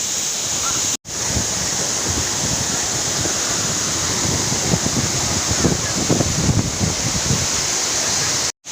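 Waterfall rushing steadily, with uneven low buffeting of wind on the microphone in the latter half. The sound cuts out abruptly for an instant twice, once about a second in and once near the end.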